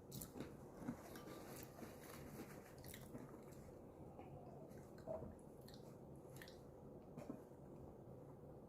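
Faint chewing with a few soft, scattered crunches of fried corn tostada shells.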